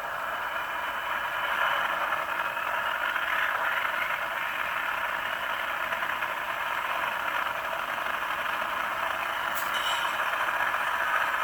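HO scale GE Tier 4 GEVO (ET44) model locomotive's onboard sound decoder playing a steady diesel locomotive running sound through its small speaker, with a brief click near the end.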